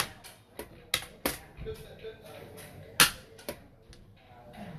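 Sharp clacks of xiangqi pieces being set down on a wooden board and the chess clock's buttons being slapped, about five clicks in all, the loudest about three seconds in.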